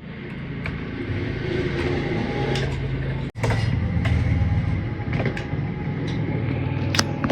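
Small plastic clicks and taps of wire connectors being handled and pushed onto a UPS circuit board, a few scattered clicks, over a steady low hum.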